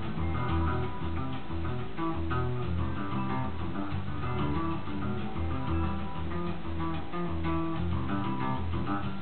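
A band's song with a bass guitar line moving through a run of notes under strummed guitars.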